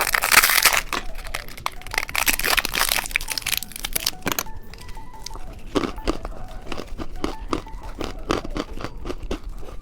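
Plastic candy wrapper crinkling and tearing open for the first few seconds, followed by a string of small, sharp plastic clicks and taps.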